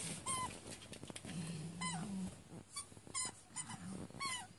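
Small dogs, a Yorkshire terrier and a chihuahua, play-growling low with several short high-pitched whines in between.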